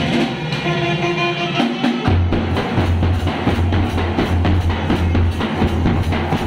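Brass band music: held horn notes at first, then from about two seconds in a fast, steady beat on bass and snare drums.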